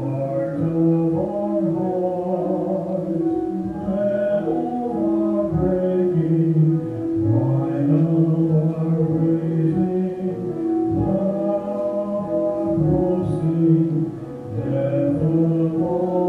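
A men's vocal duet singing a slow sacred anthem with piano accompaniment, the voices holding long notes.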